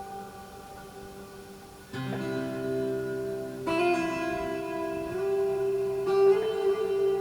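Slow meditative music: plucked string notes ringing over a held tone near 441 Hz, with new notes struck about two, three and a half and six seconds in.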